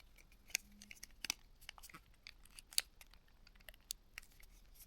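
Small sharp plastic clicks and taps, a few a second and uneven, as the battery and parts are fitted into a Nokia N95 phone; the loudest click comes near the end of the third second.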